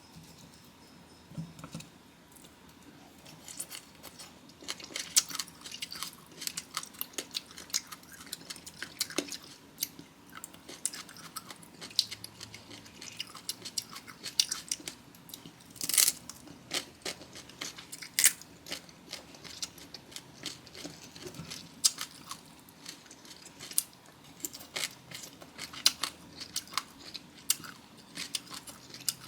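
Close-miked, crunchy chewing of Cambodian bamboo shoot and papaya salad: dense crisp crackles and bites. They begin about three seconds in and keep going.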